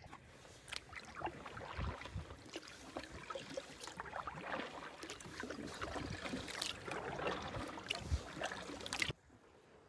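Solo canoe being paddled on calm water: the paddle dipping and pulling, small splashes and drips, and water lapping against the hull. It cuts off suddenly near the end.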